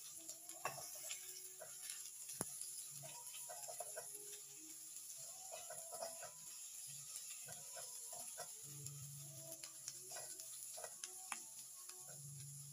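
Silicone spatula stirring sliced carrots and onions in a pan, with scattered light taps and scrapes against the pan over a faint steady sizzle.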